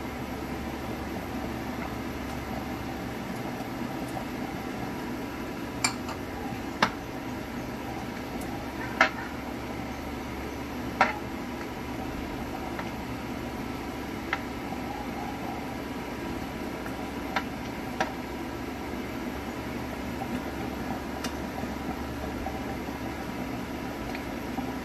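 Several sharp clinks of a utensil against a pan as chicken pieces are set into a simmering cream sauce, spaced a second or more apart in the first two-thirds. A steady hum runs underneath.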